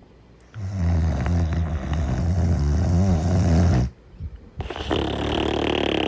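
Cartoon snoring: a long, low, rattling snore on the in-breath lasting about three seconds, then after a short pause a higher-pitched, falling breath out.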